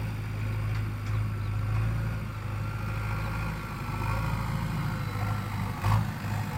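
Diesel engine of a JCB 3DX backhoe loader running steadily at a low, even speed, with a single knock near the end.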